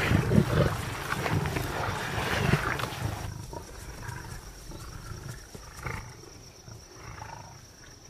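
Several lions growling as they fight over a kill. The sound is loud and dense for the first three seconds, then drops to quieter, scattered growls.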